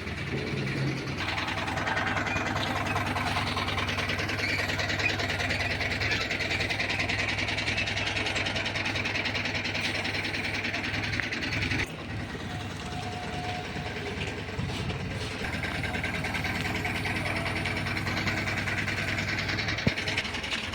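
Parboiling plant machinery running steadily: a low motor hum under a broader rushing noise, changing abruptly about twelve seconds in.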